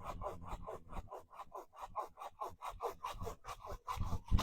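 Manual pole saw with a curved serrated steel blade cutting through a tree limb in quick, even back-and-forth rasping strokes, about six a second. A louder knock comes right at the end.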